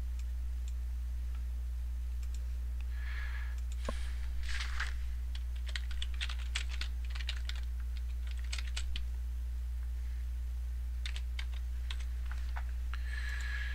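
Typing on a computer keyboard: irregular bursts of key clicks, over a steady low hum.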